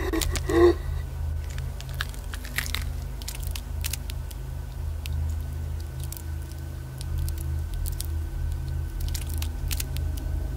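Low steady droning hum, with scattered small clicks and crackles over it and one short, loud pitched sound about half a second in.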